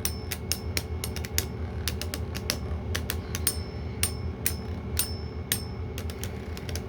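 Two Beyblade Burst spinning tops, one of them 3D-printed, running in a plastic stadium. They clash again and again in quick, irregular sharp clicks, a few with a short metallic ring, over a steady low hum of spinning.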